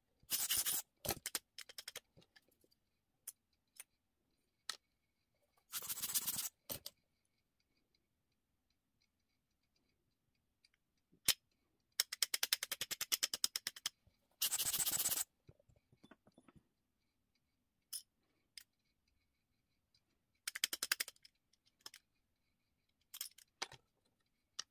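Hand work on a Helios 44-2 lens during aperture-blade degreasing: about six short bursts of fast, scratchy clicking and rubbing, with quiet gaps between.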